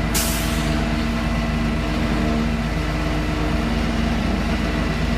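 Flatbed tow truck's engine running steadily while its winch pulls a car up the tilted bed, with a brief hiss right at the start.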